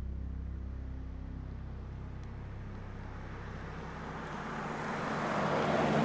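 A steady low hum, with a vehicle passing by: its rushing noise swells to loudest near the end and then fades.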